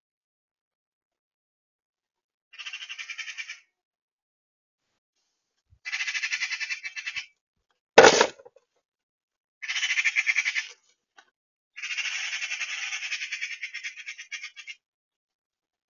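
Magpie giving its harsh rattling chatter in four bursts of about one to three seconds, the magpie's alarm call at a cat. A single sharp click about halfway through.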